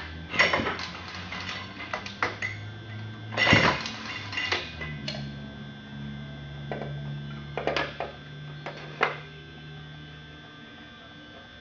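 Metal clanks and knocks from handling the heavy 1944 Titan Model E chainsaw, in several clusters over a low steady hum.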